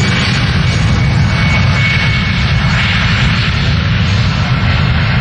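Jet engines of an Airbus A320-family airliner running at high power as it rolls along the runway: a loud, steady jet noise with a faint high whine riding on top.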